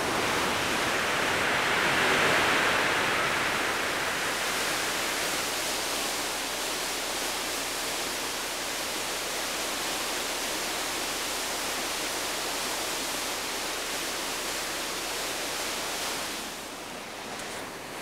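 Steady rush of falling water, like a rainforest waterfall or fast stream. It is loudest a couple of seconds in and drops somewhat near the end.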